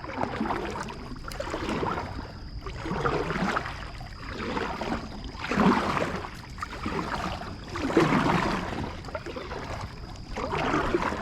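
Water sloshing and splashing around a kayak, coming in swells every couple of seconds.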